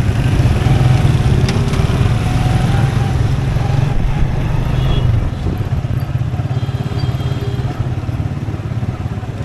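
Motorcycle engine running under the rider at low road speed, a steady low hum that drops in level about five seconds in as the throttle eases.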